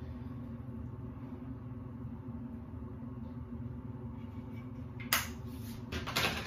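A steady low mechanical hum fills the room, and two sharp knocks come near the end, about five and six seconds in.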